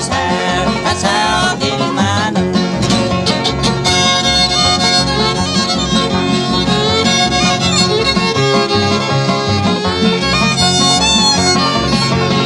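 Instrumental bluegrass: a fiddle carries the lead over banjo, with a steady bass beat underneath.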